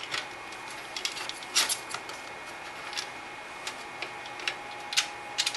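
Long fan screws being threaded through a case fan into a liquid-cooling radiator: irregular small clicks and ticks of the screws and driver, about a dozen over a few seconds.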